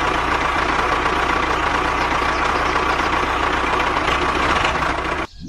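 A motor running steadily, with a faint steady whine, that cuts off abruptly near the end.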